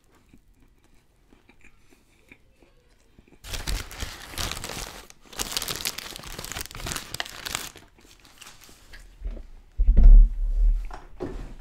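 Crisp crunching and paper crinkling close to the microphone, in two loud stretches of about two seconds each a few seconds in, as a hand-breaded crispy chicken sandwich is eaten and its paper wrapper handled. A heavy low thump follows near the end.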